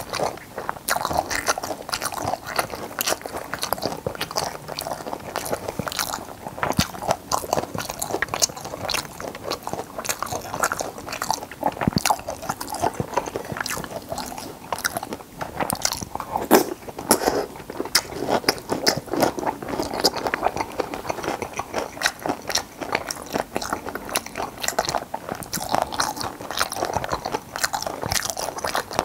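Close-miked mouth sounds of a person chewing braised stingray: wet, sticky chewing with dense crackling crunches from the fish's soft cartilage, going on without pause.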